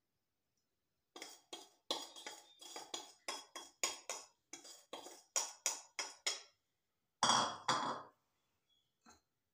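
A metal spoon clinking against a small glass bowl: a quick run of taps, about three a second, as salt is knocked out into the mixing bowl. Near the end come two louder, longer knocks.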